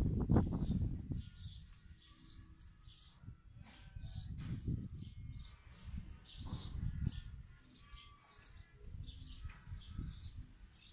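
Small birds chirping repeatedly in short, high calls, over a low rumble that swells and fades several times.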